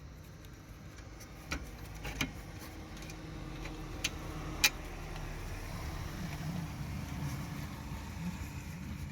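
A few short sharp metallic clicks as the brake caliper bolts and tools are handled, over a low steady rumble that grows louder a few seconds in.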